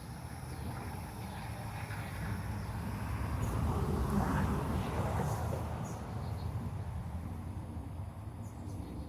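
Low rumbling noise that swells to a peak about four seconds in and then fades, over faint steady insect calls.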